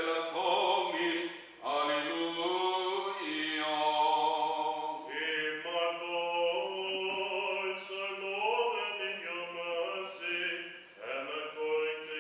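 A priest's solo voice singing Byzantine chant from the Greek Orthodox funeral service, long held notes winding up and down in phrases with brief breaths between them, over a steady low drone.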